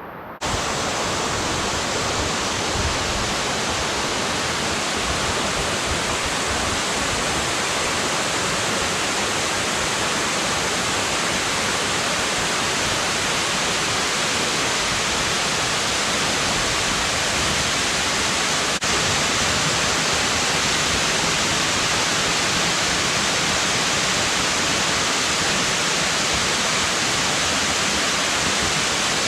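Waterfall in heavy flow: a loud, steady rush of falling water that cuts in abruptly about half a second in.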